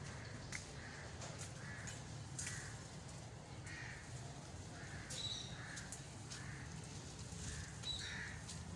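Crows cawing over and over, a dozen or so short calls at one or two a second, over a low steady background hum.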